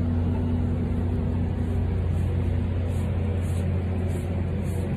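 A steady low mechanical hum, like a nearby engine running at idle, unchanging throughout.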